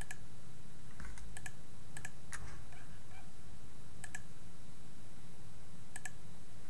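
Computer mouse buttons clicking: a handful of sharp clicks at irregular moments, some in quick pairs, over a steady low hum.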